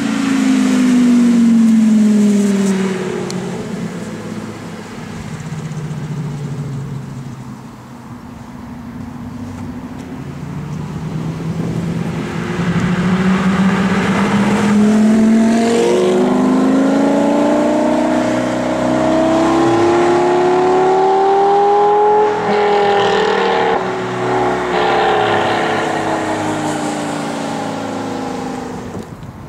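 Lamborghini Gallardo Superleggera's V10 engine and exhaust under way. The pitch drops off at the start, then climbs in a long rev-up through the middle as the car accelerates, peaks about two-thirds of the way through and falls again, growing quieter near the end as it draws away.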